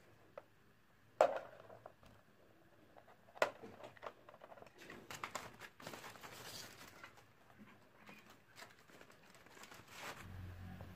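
Hard plastic keyboard parts being handled on a work surface: two sharp knocks, about one and three and a half seconds in, then scattered small clicks and rustling. A low hum comes in near the end.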